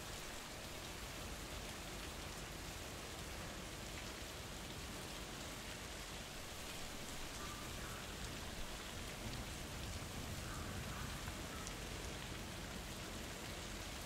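Steady rain falling, an even hiss of drops pattering on the ground.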